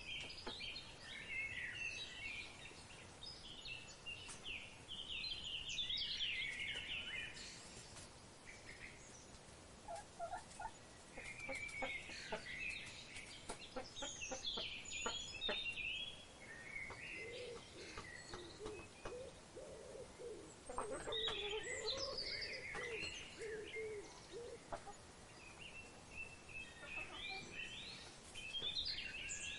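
Birds of paradise calling: a chorus of quick high chirps and trills throughout. A run of lower, fowl-like calls comes in the middle, and sharp clicking notes are scattered through the first half.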